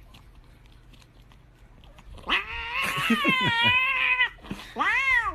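A cat meowing: a long, drawn-out, wavering meow starting about two seconds in, then a shorter meow near the end.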